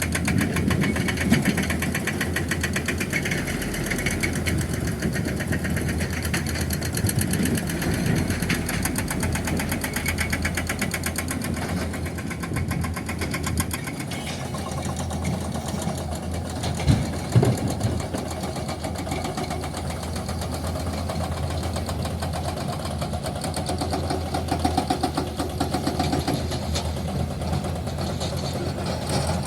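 Diesel engine of heavy construction machinery running steadily, with a couple of sharp knocks about halfway through.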